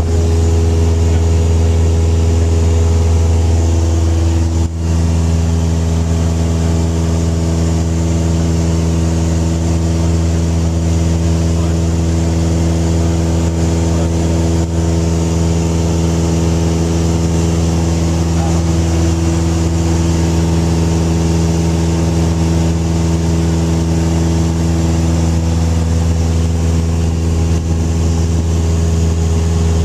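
Light airplane's engine and propeller droning steadily in level flight, heard from inside the cabin.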